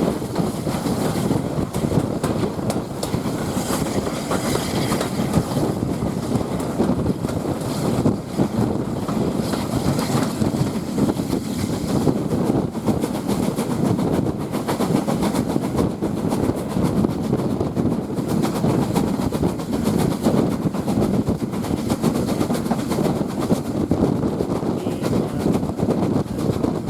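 Train carriage in motion heard from on board: steady wheel-on-rail running noise with many small clicks and rattles.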